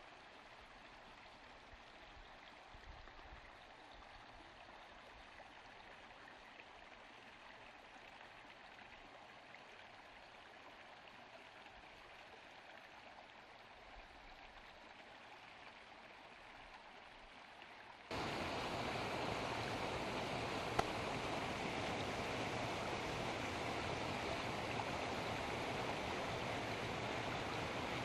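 A faint, steady hiss, then after an abrupt cut about two-thirds of the way through, the louder, steady sound of running water.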